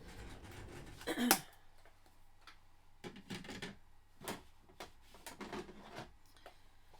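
Small hard clicks and taps of stamping supplies being handled on a craft desk: a sharp knock about a second in, then a run of lighter clicks and taps a few seconds later.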